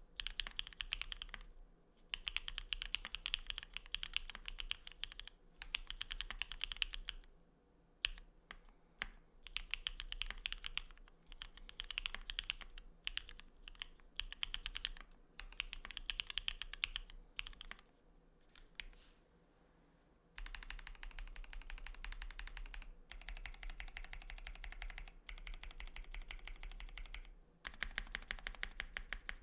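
Typing on a Geon Works F1-88 mechanical keyboard with an aluminium plate, lubed Cherry Cream switches (MX black housings with NK Cream stems) and XMI ascii keycaps: rapid keystrokes in bursts of a few seconds with short pauses. About two-thirds of the way through the typing turns into a faster, unbroken run of keystrokes.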